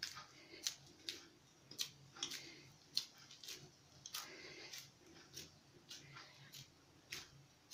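Faint, irregular soft pats of wet maize-flour dough being pressed and patted flat between the palms to shape a makki roti, about one pat every half second to second.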